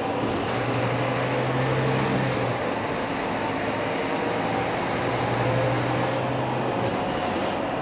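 Cabin noise inside a moving city bus: steady engine and road noise, with a low drone that comes in twice for about two seconds each time.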